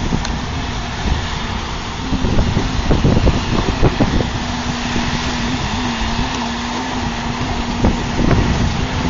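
Strong wind buffeting the microphone, a loud gusting rumble that surges and eases, with a steady low hum underneath.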